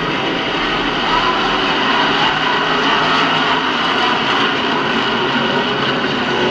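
Pack of NASCAR K&N Pro Series West stock cars' V8 engines running at race speed out of sight around the oval, a loud steady drone that grows slowly louder as the field approaches.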